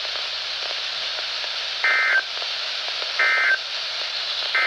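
NOAA Weather Radio end-of-message signal: three short bursts of two-tone EAS/SAME digital data, a little over a second apart, over a steady hiss of radio static.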